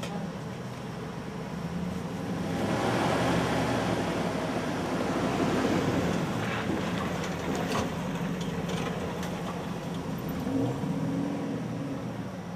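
Dodge pickup truck driving off along a dirt track: the engine runs steadily, with a louder stretch of engine and tyre noise from about two to eight seconds in, and scattered clicks and rattles near the middle.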